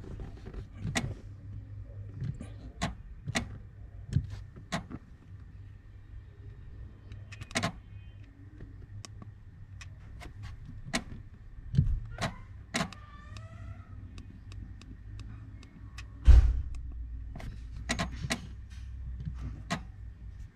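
Mitsubishi Lancer running with a low steady hum, heard inside the cabin, under scattered sharp clicks and knocks. A heavy thump comes about two-thirds of the way through, and a short squeaky rising sound a little past the middle.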